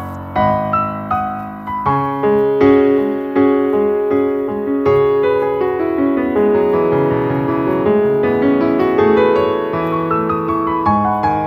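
Background piano music: a gentle melody of struck notes.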